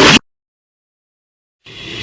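Sound effects played backwards. A loud, harsh effect cuts off abruptly just after the start, about a second and a half of dead silence follows, and then the next reversed effect swells in near the end, growing louder.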